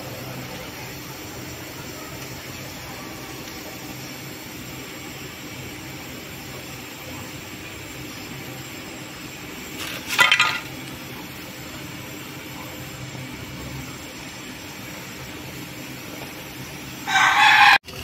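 Gas brazing torch hissing steadily as it heats the copper filter drier and capillary joint of a refrigerator's sealed system. Twice, about ten seconds in and again near the end, a short, loud pitched call cuts in over it.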